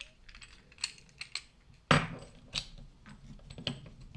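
Master Lock 410 LOTO padlock being handled and taken apart by hand: a run of small clicks and knocks, with a sharper knock about two seconds in.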